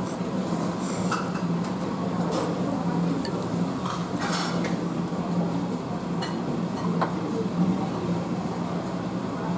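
Restaurant dining room sounds: dishes and cutlery clinking now and then, a few sharp clicks scattered through, over a steady low hum.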